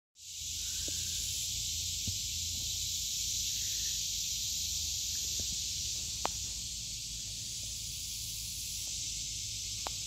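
A chorus of summer cicadas making a steady, high-pitched hissing drone that never breaks, with a few faint ticks.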